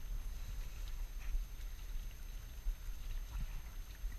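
Low, unsteady rumble of wind buffeting the microphone outdoors, with a few faint ticks.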